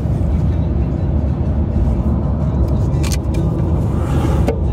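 Steady low rumble of road and engine noise inside a moving car's cabin, with a few sharp clicks about three seconds in.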